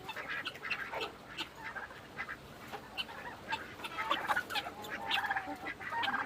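A flock of backyard chickens clucking, with many short overlapping calls.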